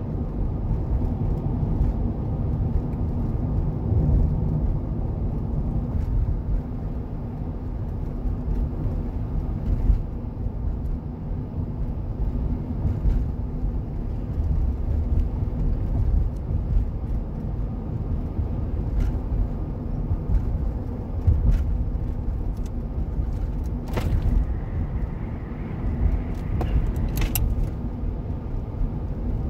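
Steady road noise inside a moving car's cabin: a low tyre and engine rumble, with a couple of sharp clicks near the end.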